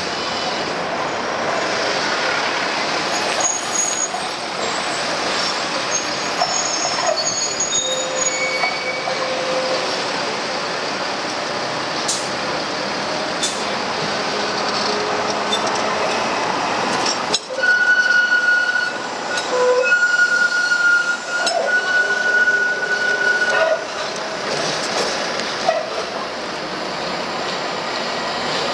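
Manchester Metrolink T-68 light-rail tram running through the stop on grooved street track. About two-thirds of the way in, a single high steady wheel squeal, broken a few times, rises over the running rumble for about six seconds as the tram takes the curve; it is the loudest part.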